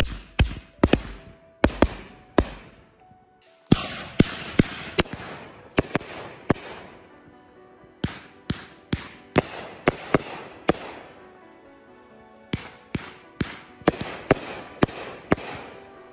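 A 500-gram firework cake firing a rapid string of sharp shots, about two or three a second, in three volleys with short pauses between them. Background music plays underneath.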